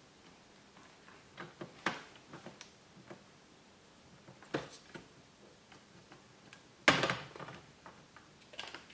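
Small clicks and taps of a laptop-style CPU heatsink and cooler assembly being worked up off the processor by hand, with a louder clack and rattle about seven seconds in as it comes loose.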